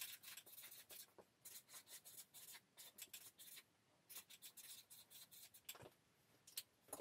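Felt-tip marker writing on a large sheet of easel-pad paper: a faint, quick run of short strokes with a couple of brief pauses, thinning out near the end.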